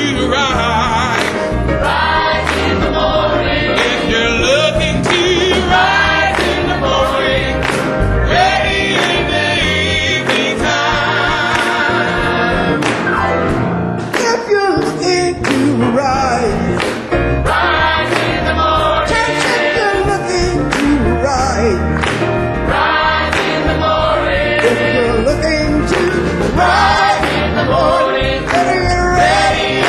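Gospel song sung with a choir over instrumental backing with a steady beat.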